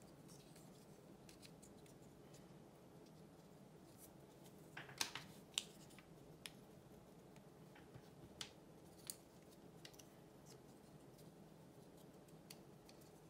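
Faint clicks and taps of small laser-cut wooden model parts being handled and pressed together as wheels are fitted to a frame, with a cluster of sharper clicks about five seconds in and a few scattered ones after, over a low steady room hum.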